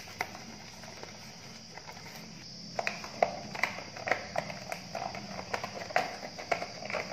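Fingers picking at the tuck flap of a clear plastic packaging box, making irregular light plastic clicks and taps that start about three seconds in, over a faint steady hum.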